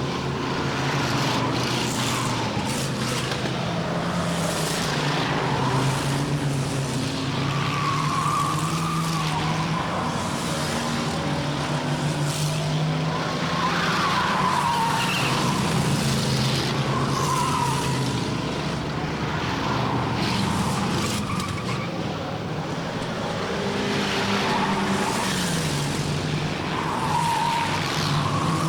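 Stock cars lapping a short oval with their engines droning, while the tyres squeal through the turn every few seconds.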